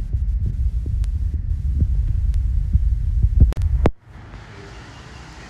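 Wind buffeting the phone's microphone: a loud low rumble with a few sharp clicks. It cuts off suddenly about four seconds in, leaving a much quieter, steady outdoor background hiss.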